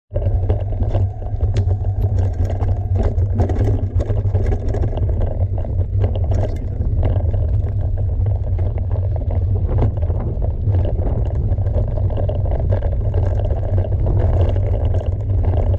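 Mountain bike riding a dirt trail: wind buffeting the microphone as a steady low rumble, with frequent clicks and rattles from the tyres and bike.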